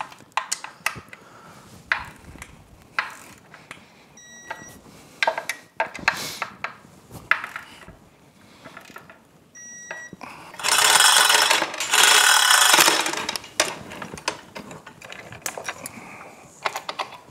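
Hand ratchet clicking in short runs as the bolts holding an outboard powerhead to its midsection are run down and tightened, with scattered metal clinks. A little past the middle comes a louder rattling stretch of about two seconds, in two parts.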